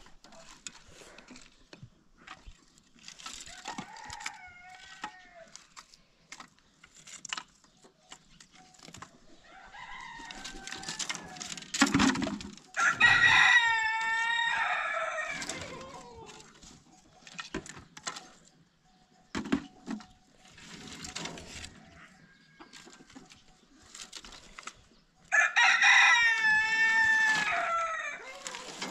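Rooster crowing: two long, loud crows, one a little before halfway and one near the end, with fainter shorter calls in between.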